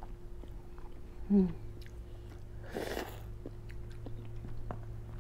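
Close-up mouth sounds of someone eating ramen noodles: chewing with small wet clicks, a short hummed 'mm' about a second and a half in, and a brief breathy rush of air a little later.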